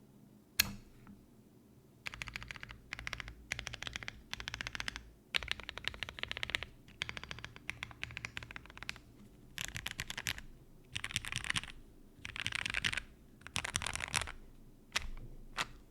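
Mechanical keyboard being typed on: an M.One Ginkgo 65 with lubed Gateron Box Black Ink linear switches, a polycarbonate plate and PBT keycaps. A single loud keystroke comes about half a second in, then runs of fast typing with short pauses between them, and two lone keystrokes near the end.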